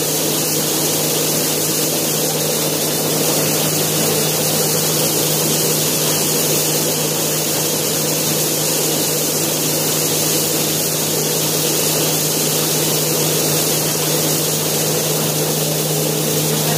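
Yanmar RHS40DL brown-rice husker running steadily, an even machine hum under a constant rushing noise.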